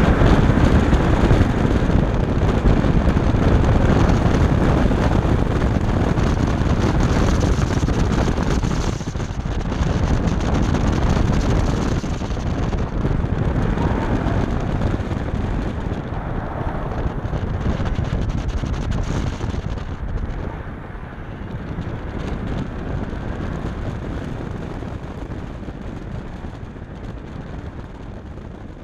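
A BMW F10 535i's turbocharged straight-six is driven hard through an autocross course, mixed with tyre and wind noise heard from inside the cabin. It gets quieter over the last third as the car slows toward the finish.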